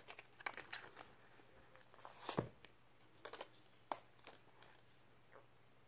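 Faint paper rustling and a few light clicks as a red paper band is slid off a paperback book and the book is handled, the loudest rustle about two and a half seconds in.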